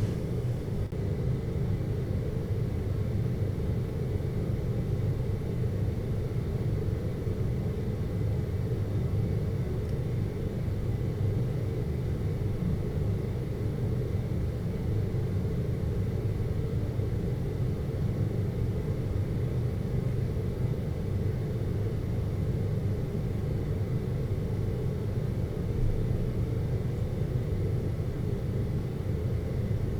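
Steady, unchanging low rumbling hum, like brown noise, with its weight in the deep bass and faint thin steady tones above it.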